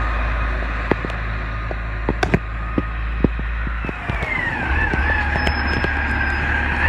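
Side-loader garbage truck's diesel engine running steadily, with scattered clicks. About four seconds in, the sound changes and a high whine glides down in pitch, then holds steady over the engine.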